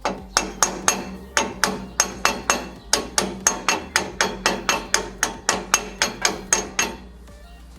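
Hammer tapping the pinion flange onto the pinion of a GM 7.5-inch 10-bolt rear axle: a long run of light, evenly spaced metal blows with a short ring, about four a second, stopping about seven seconds in.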